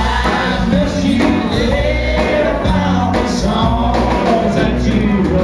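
Live country band playing loudly, a man singing over electric guitar and band.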